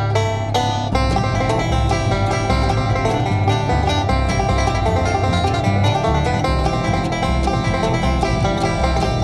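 Bluegrass background music led by a rapidly picked banjo, with guitar underneath, playing at a steady level.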